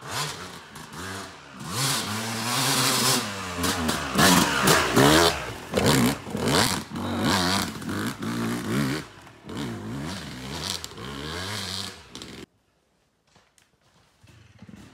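Two-stroke dirt bike engine revving hard with repeated throttle blips, its pitch rising and falling as the bike climbs over a log step-up. The engine sound cuts off suddenly about twelve seconds in.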